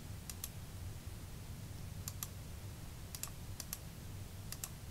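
Computer mouse button clicking as stones are placed on an online Go board: faint, sharp clicks in close pairs, about five times.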